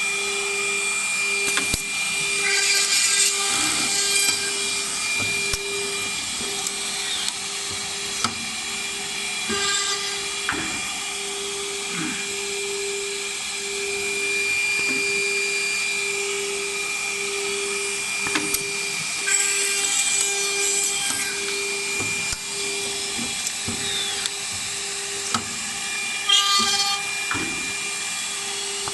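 Automatic drilling and screw-tapping machine for wooden brush handles running: a steady motor hum and whine with clicks and knocks from its pneumatic mechanism. Louder high-pitched bursts come about two seconds in, near the middle and near the end.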